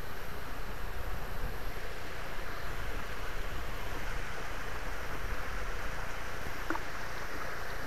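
Steady rushing of water at a lake spillway, an even hiss with a low rumble beneath it.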